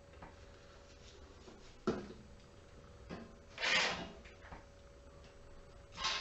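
Hand tools being handled on a steel workbench: a sharp knock about two seconds in, a short scraping rub a little later and another at the very end, over a faint steady hum.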